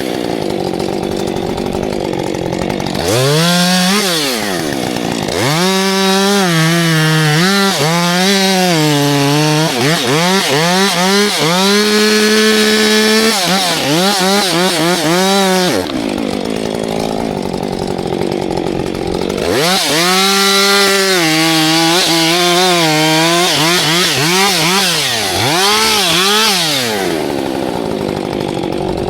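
Two-stroke Husqvarna chainsaw running at high revs and cutting wood. Its engine pitch repeatedly climbs, holds and sags as the throttle and the load in the cut change. Twice, near the start and a little past halfway, the pitch washes out into a rougher, noisier sound for a few seconds.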